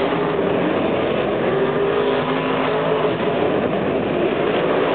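Monster trucks' supercharged V8 engines running as the trucks drive slowly around the arena floor: a steady, loud, dense rumble with a faintly wavering engine note.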